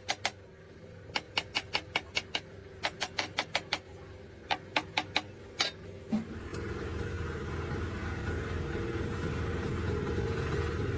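Quick groups of sharp metallic clicks or taps, then a thud at about six seconds and an engine running steadily for the rest.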